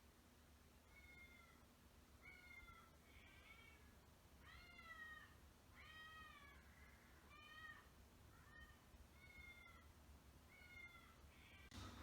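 A cat meowing: a string of about ten short, high meows, roughly one a second, each rising and falling in pitch.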